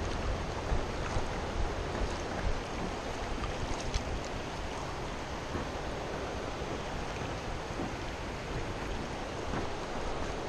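Steady rush of a shallow river running over rocks, with a low rumble of wind buffeting the microphone.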